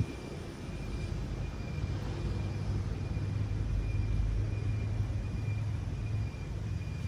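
Low rumble of a motor engine, swelling through the middle and dropping off about six seconds in, with a faint steady high-pitched tone running under it.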